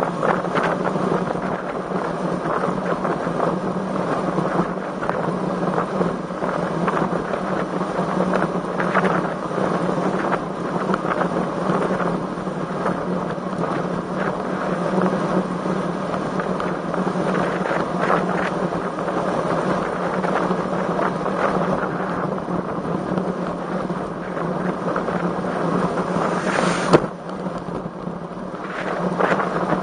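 Wind rushing over the microphone while riding a road bicycle in strong wind, a steady noise, with one sharp click near the end.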